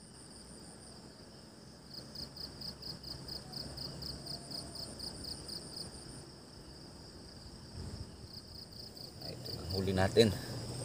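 Insects chirping in runs of fast, even pulses, about five a second, over a low steady rush. A single short spoken word comes near the end.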